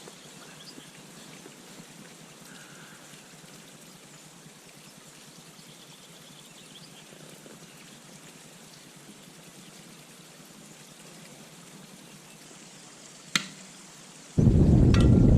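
Steady faint rushing noise, even and without any pitch. Near the end comes a single sharp click, and in the last second a sudden loud burst of low, rumbling noise.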